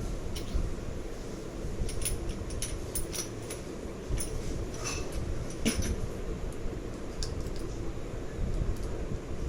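Scattered sharp clicks and clinks of small hard parts and tools being handled, over a steady low background hum.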